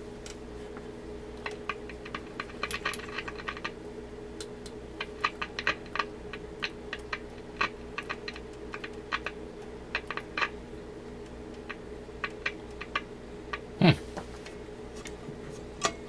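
Irregular sharp clicks and ticks as the tuning knob of an Emerson 505 tube radio is turned across the dial, over a steady mains hum. A short falling tone comes near the end. The radio's audio stage is dead, so no station or static comes through the speaker.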